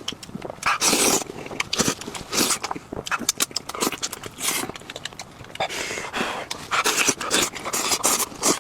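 Close-miked eating sounds: irregular crunching, smacking and chewing noises in quick bursts.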